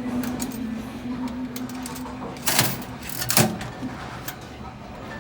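Vending machine dispensing: its motor hums steadily for about two seconds, then two sharp knocks come less than a second apart, as the item drops into the bin.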